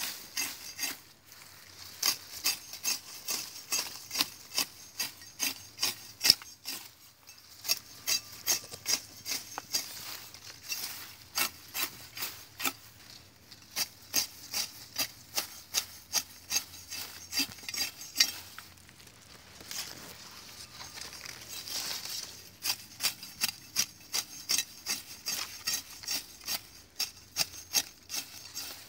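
A sharp hand sickle slicing through grass stems in quick repeated strokes, about two or three cuts a second, in runs broken by short pauses.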